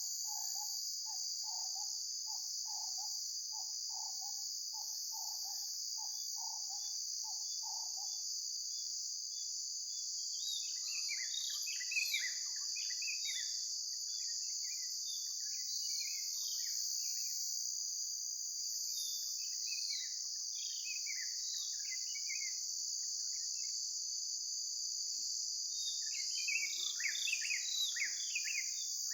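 Dusk chorus: a steady high-pitched trill of crickets and other insects throughout. For the first eight seconds it carries a low note repeated about one and a half times a second, and from about ten seconds in birds chirp over it, busiest near the end.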